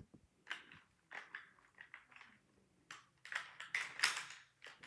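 Plastic Trio construction blocks clicking and rattling as the block-built rifle and its block cartridges are handled, a scatter of short clicks that bunch up and get louder about three seconds in.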